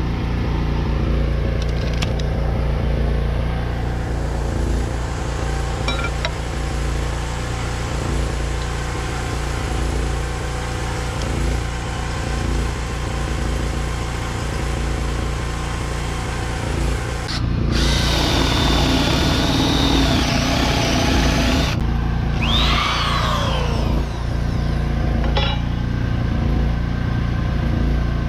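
Portable generator engine running steadily at constant speed. About two-thirds of the way in, an electric drill runs for around four seconds, followed by a short whine that rises and falls.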